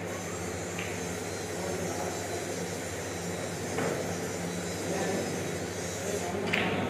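An engine running steadily in the background, a constant low hum.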